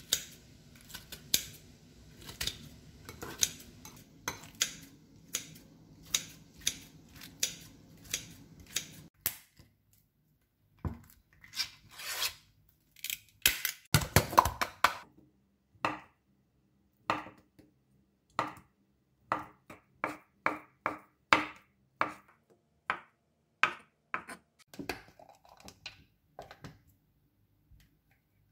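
Kitchen scissors snipping kimchi in a glass bowl, a crisp cut every half second or so, with a low hum underneath, for about nine seconds. After a short pause, a knife knocks on a wooden cutting board, dicing a block of ham: a quick flurry of knocks about a third of the way in, then steady single chops.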